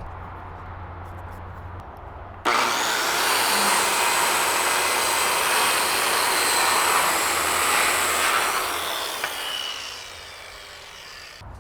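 Power saw cutting through a wooden 4x6 runner: it starts suddenly about two and a half seconds in, runs steadily for about six seconds, then winds down and fades.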